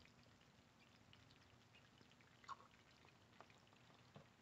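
Near silence: faint outdoor background with a few small scattered ticks, one a little louder about two and a half seconds in.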